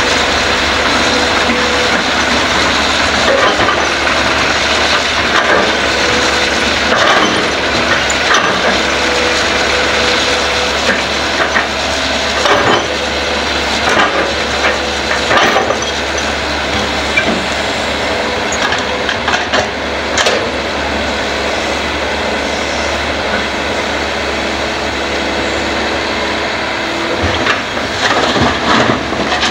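Hitachi hydraulic excavator's diesel engine running steadily under digging load, with repeated knocks and scrapes of the steel bucket biting into soil and rock. Near the end comes a cluster of clatter as the loaded bucket is over the dump truck and soil and rocks drop into the bed.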